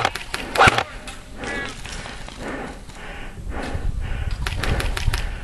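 Handling noise from an airsoft rifle with a camera mounted on it: two sharp clicks in the first second, then soft rustling of gear in a steady rhythm and a low rumble of wind or handling near the end.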